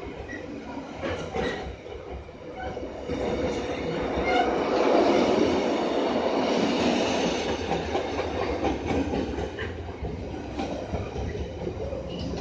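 Container wagons of a freight train rolling past close by: steady wheel-on-rail rumble with scattered clicks, swelling loudest in the middle and easing off again.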